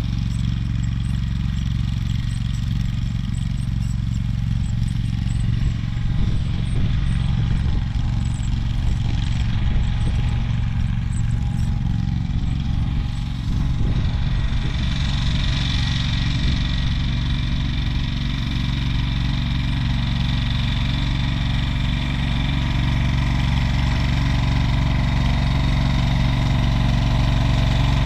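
AGCO Allis ride-on garden tractor's engine running steadily, growing gradually louder toward the end as it drives closer.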